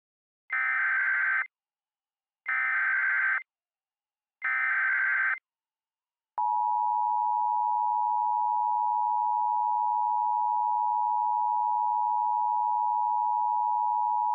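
Emergency Alert System tones: three one-second bursts of SAME header data about two seconds apart, then the steady two-tone EAS attention signal, held for about eight seconds and cut off sharply.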